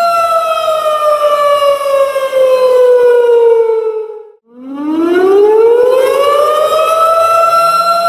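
Tornado warning siren wailing. Its tone slides slowly down for about four seconds and almost dies away, then climbs back up and holds steady near the end.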